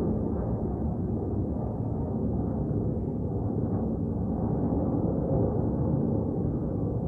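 Steady low rumble of F-16 fighter jet engines, a noisy roar with no clear pitch.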